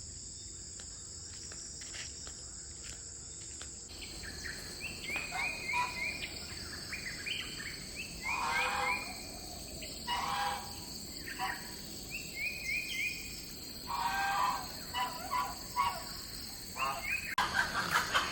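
Rural outdoor ambience: birds calling in repeated short chirps and phrases over a steady high-pitched drone of insects. The insect drone thickens about four seconds in, and the calls grow busier and louder near the end.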